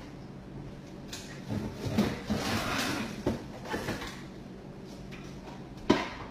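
Freezer being opened and frozen plastic tray inserts taken out: rustling and several light plastic clunks, then a sharp knock near the end.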